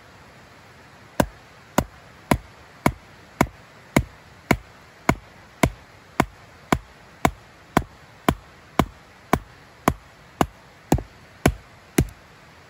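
Rhythmic chopping: about twenty sharp, evenly spaced blows at nearly two a second, starting about a second in.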